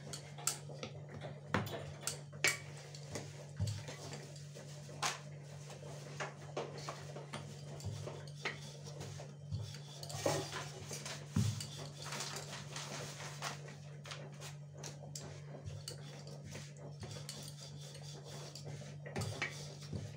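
Wooden rolling pin rolling out paratha dough on a countertop, with irregular light knocks and clicks as the pin and hands move, over a steady low hum.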